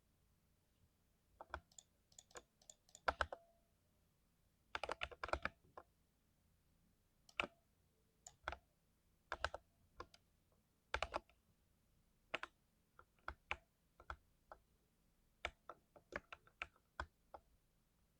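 Mechanical keyboard with lubed switches, keys pressed in slow, irregular strokes and small clusters, with a quick run of several keystrokes about five seconds in.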